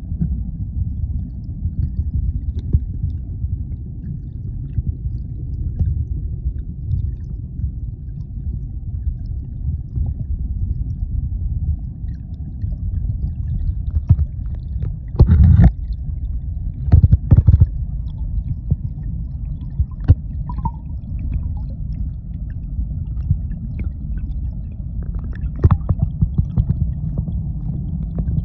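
Muffled low rumble and gurgle of spring water, heard with the phone held under the water. A few loud knocks come about halfway through.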